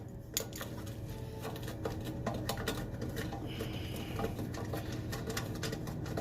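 Ratchet wrench clicking in a run of short, sharp ticks, a few a second, as a small socket turns a booster-heater mounting bolt, over a steady low hum.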